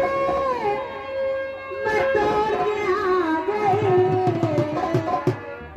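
Indian folk music: a held melody line that slides between notes, with drum strokes entering a little past halfway.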